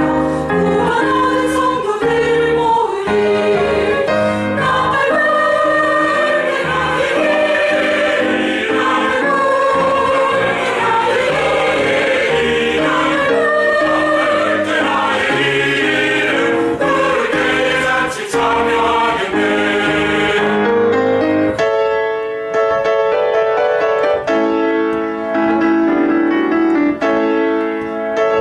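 Church choir singing a gospel hymn anthem in parts, with keyboard accompaniment. About three-quarters of the way through, the voices stop and a piano carries on alone in an instrumental interlude.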